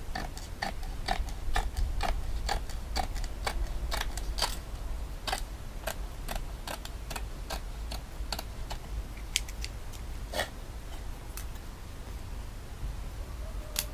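Scissors snipping through mosquito-net mesh along the edge of a screen frame, trimming off the excess: a run of sharp, irregular clicks, two or three a second, that thins out after about nine seconds.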